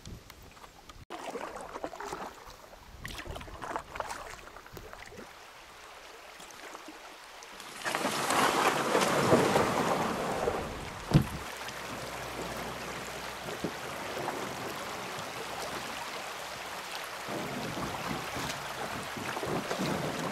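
Fairly quiet at first, then from about eight seconds in the steady rush of shallow river water running over rocks around the canoe. A single sharp knock comes about eleven seconds in.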